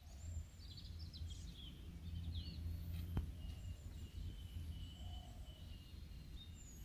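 Outdoor rural ambience: a steady low rumble with birds chirping, busiest in the first second and a half, and a thin, steady high note through the second half. A single sharp click comes about three seconds in.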